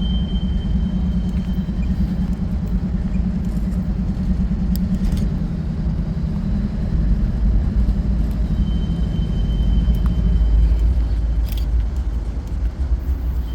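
Low, steady rumble of a passing train with a droning hum that fades out a little after ten seconds in.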